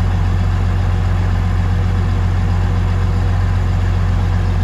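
Old tractor engine running steadily with a deep, even hum, driving a pre-war DC dynamo welding generator.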